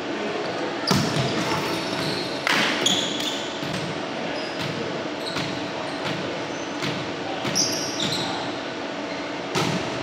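Volleyball thumping against hands and the hardwood gym floor several times, each hit echoing in a large hall, with short sneaker squeaks on the court between them.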